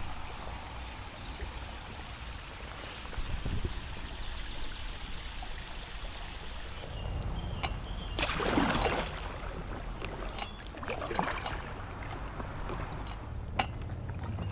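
Water trickling and splashing from kayak paddle strokes, with a few louder splashes about every two to three seconds in the second half.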